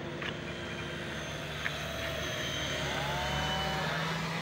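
M2 micro RC helicopter flying low, its electric motor and rotors whirring steadily, with a brief shift in pitch about three seconds in as the speed changes.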